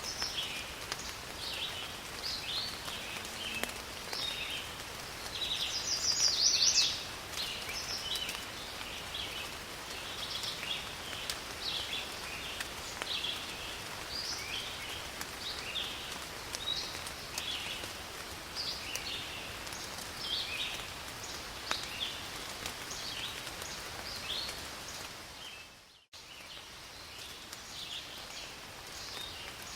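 Forest rain falling steadily, with a dense chorus of short, high chirping calls repeating throughout and one louder call about six seconds in. The sound briefly drops out near the end, as at a splice in the recording.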